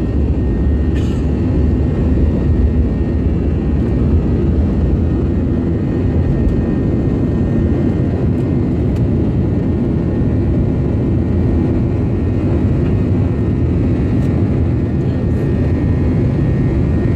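Jet airliner at takeoff heard from inside the cabin: the underwing turbofan engines at takeoff power, a loud, steady, deep rumble with rushing noise as the plane rolls down the runway and climbs away.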